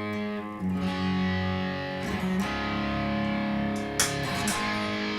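Electric guitar played through a Boss Katana 100 amp: ringing chords that change every second or two, with a new chord struck about four seconds in.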